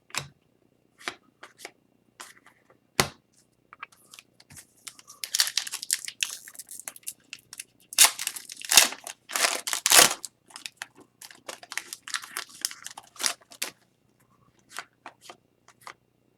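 Upper Deck hockey card pack and cards being handled: scattered clicks and snaps at first, then a dense stretch of wrapper crinkling and tearing in the middle, thinning back to a few clicks near the end.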